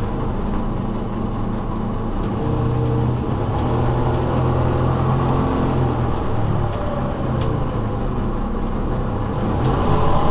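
Iveco Urbanway 12 city bus's engine running under way, its pitch rising and falling as the bus pulls.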